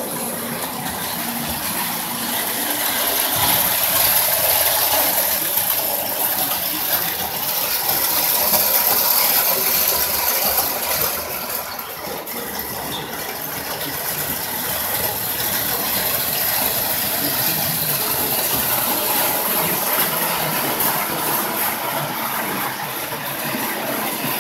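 Marx William Crooks O-gauge toy train running on three-rail tinplate track: a steady mechanical whir and rattle of the locomotive's motor and gearing and the wheels on the track. It gets louder a few seconds in and eases off again before the middle.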